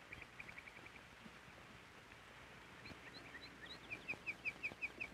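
Small songbirds chirping faintly: a quick run of short chirps near the start and a few scattered higher notes, then a steady series of about eight clear chirps, about five a second, near the end, the loudest part.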